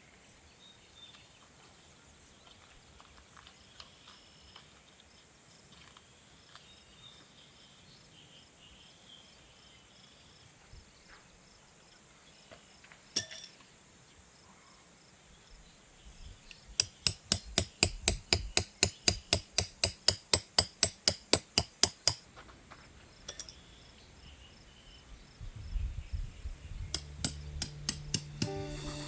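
A tent peg being hammered into the ground: a fast, even run of about two dozen sharp metallic strikes, about five a second, lasting some five seconds. A single sharp click comes earlier, and a few more knocks near the end.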